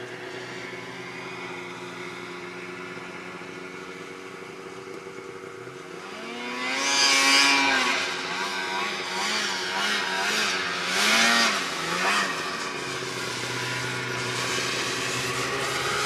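Snowmobile engines. A steady, distant engine drone, then about six seconds in a nearby sled revs up loudly, its engine pitch rising and falling several times, before settling into a steadier drone near the end.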